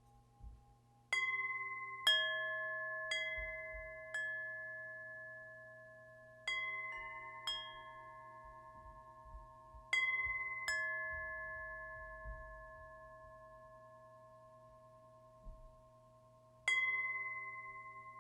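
Wind chimes ringing: about nine irregular strikes, some a second apart and others several seconds apart with a long pause before the last one. Each strike rings out in several clear, sustained tones that fade slowly.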